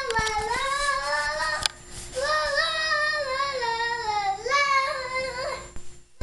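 A young child singing a long, wavering tune without clear words, in two phrases with a short break about two seconds in.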